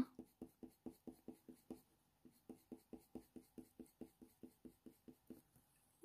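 Ivory Faber-Castell Polychromos colour pencil stroking lightly over hot-press watercolour paper: faint, quick, even strokes, about five a second, with a short pause about two seconds in, stopping near the end.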